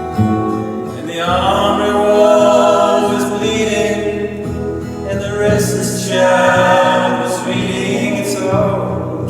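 Live folk song: voices singing long, held notes in harmony over instrumental accompaniment, in two drawn-out phrases, one starting about a second in and the next at about five and a half seconds.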